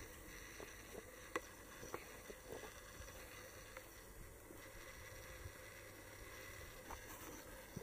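Quiet hand-and-foot scrambling on granite: a few small taps and scuffs as a hand and feet are placed on the rock, the clearest about a second and a half in and again near the end, over a low steady background noise.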